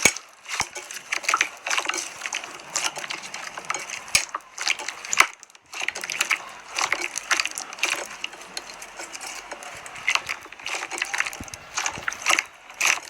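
Hands squeezing and stretching slime, making a dense run of irregular crackles and pops.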